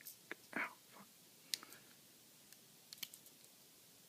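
A few faint, scattered clicks and handling noises from a Victorinox Swiss Champ pocket knife being handled to open its large blade.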